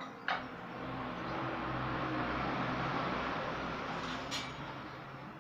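Two short clicks at the start, as the pressure cooker lid is handled. Then a passing motor vehicle's rumble rises over about two seconds and fades away again.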